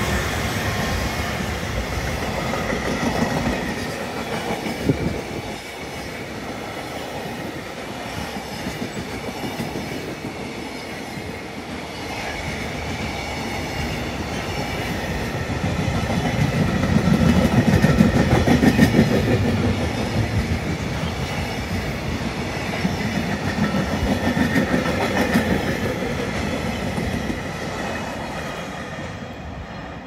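Freight train container wagons, hauled by an EF210 electric locomotive, rolling past with a steady rattle and clatter of wheels on the rails. The noise swells over a few seconds in the middle and fades near the end as the tail of the train moves away.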